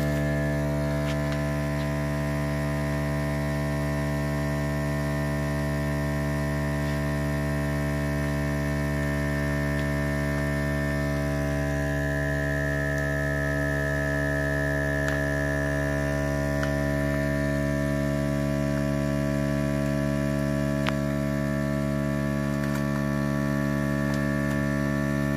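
SilverCrest vacuum sealer's pump running with a steady, even hum as it draws the air out of a sealed vacuum bag.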